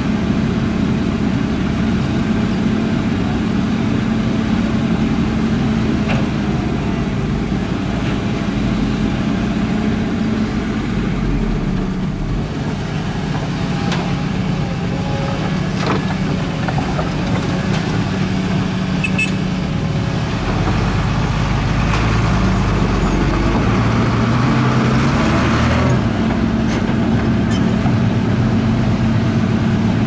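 Diesel engine of a Caterpillar hydraulic excavator running steadily while it digs and loads dirt, working harder for several seconds from about twenty seconds in, with a dump truck's diesel running alongside. A few short knocks are heard.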